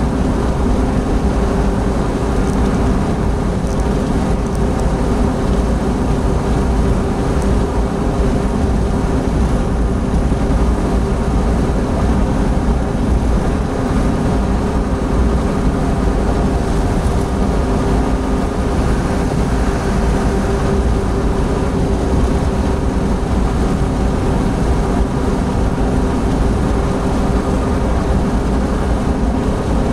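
Opel Blazer cruising at about 100 km/h, heard from inside the cabin: steady engine hum mixed with tyre and wind noise.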